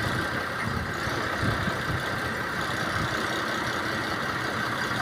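An engine running steadily at idle, with a few faint low thumps during the first three seconds.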